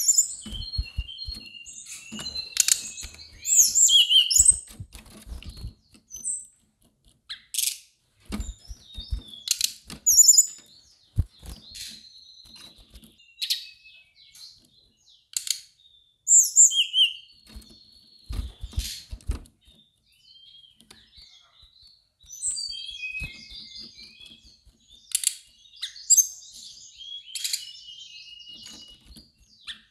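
Brown-chested jungle flycatcher singing in short, high, quickly changing phrases, mixed with other chirps, throughout. Scattered dull low thumps come in clusters, the heaviest about a second in, near ten seconds, and near nineteen seconds.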